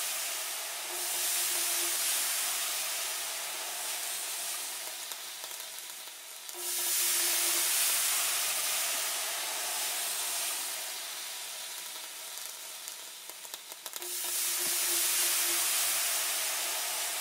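Hissing white noise that jumps up suddenly about six and a half seconds in and again near fourteen seconds, slowly fading after each jump, with a brief faint low tone at each rise.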